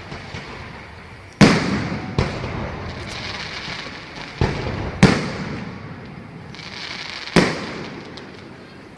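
Aerial fireworks bursting: five loud booms spaced one to three seconds apart, each trailing off in a long rumbling echo, with a few small crackles between them.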